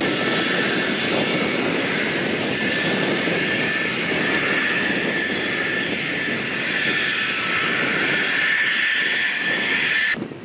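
Jet engines of F-22 Raptor fighters running on the ground: a steady rush with a high-pitched whine, cut off abruptly near the end.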